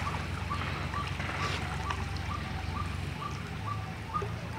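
Pangas catfish (pangasius) splashing and churning at the pond surface as they feed. Over the splashing, a bird repeats a short chirp about twice a second.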